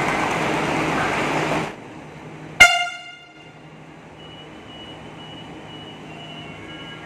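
Platform noise of a standing ETS electric train that cuts off suddenly. About a second later comes a single very short, loud horn toot from an ETS electric train approaching the platform, its ringing dying away within half a second. A low steady hum from the train follows.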